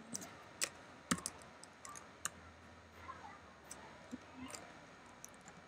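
A few faint keystrokes on a computer keyboard: separate, irregularly spaced clicks as a short code shortcut is typed.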